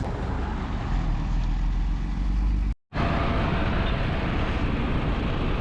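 Road traffic noise: motor vehicles running with a steady low rumble. The sound drops out briefly to silence about halfway through.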